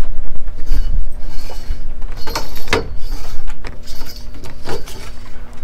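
Spinning reel cranking and clicking as a hooked speckled trout is played on rod and line, with irregular scrapes and knocks of handling over a steady low rumble.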